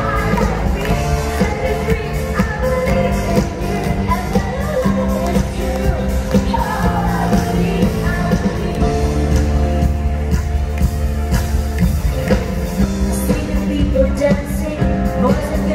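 Live band playing pop-rock music with a singer, amplified in a large hall, with a strong steady bass.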